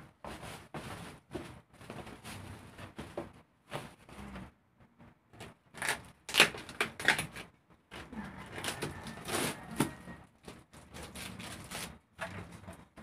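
Crinkling of a plastic-wrapped bundle being shifted, then packing tape being picked at and peeled off a cardboard box, in irregular rustles and rips, loudest about six and nine seconds in.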